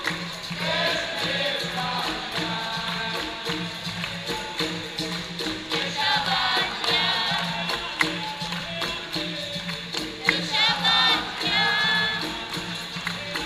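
Capoeira roda music: a pandeiro jingling and other percussion under a group of voices singing.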